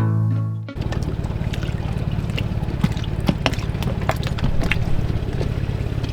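A dinghy's outboard motor running steadily, with water splashing and slapping against the hull. Guitar music cuts off suddenly under a second in.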